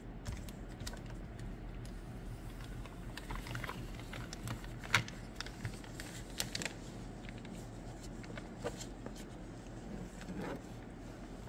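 Light crackling and scattered clicks of plastic window-tint template film being handled and peeled away from wet glass, with one sharper click about five seconds in, over a low steady hum.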